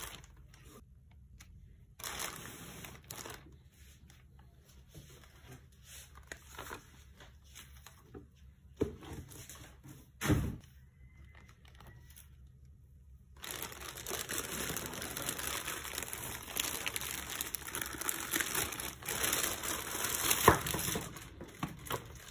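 Clear plastic packaging bag crinkling and rustling as a fan heater is handled and pulled out of it, mostly in the second half, with a few soft knocks before that.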